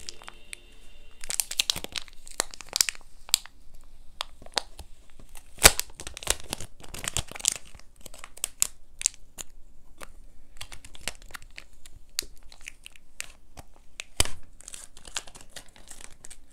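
Clear plastic wrapper on a kneaded rubber eraser being picked at, torn and peeled off by hand: irregular crinkling and tearing, with a couple of sharper crackles, as the tight wrapper proves hard to get off.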